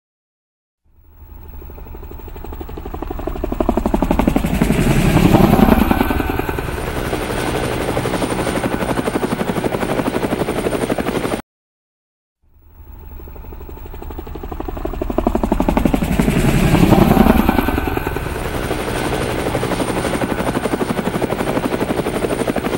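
Helicopter flyby: a fast rotor chop swells in over a few seconds, peaks as it passes, then settles to a steady beat with a high whine before cutting off abruptly. The same pass then plays a second time after about a second of silence.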